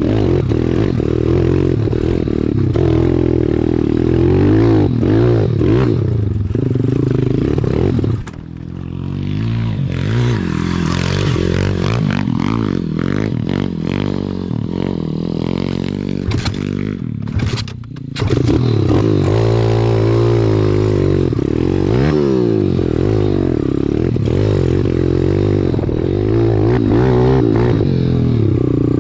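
Single-cylinder four-stroke pit bike engine under way on a rough dirt trail, its pitch rising and falling with the throttle, with clattering from the bike over the bumps. The engine eases off about eight seconds in and again near eighteen seconds, then pulls hard again.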